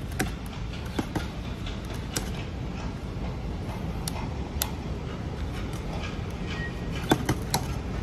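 Scattered sharp clicks of a floor polisher's handle toggle switch being flicked and worked by hand during a continuity test of the switch, a few in quick succession near the end, over a steady low rumble.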